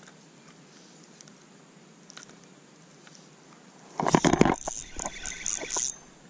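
Faint steady outdoor background with a few small ticks, then about four seconds in a sudden loud rustling and knocking close to the microphone for about half a second, followed by a string of sharp clicks that stops about two seconds later.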